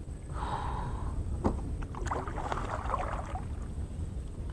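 Paddle strokes and water splashing and trickling beside a small canoe, over a steady low rumble.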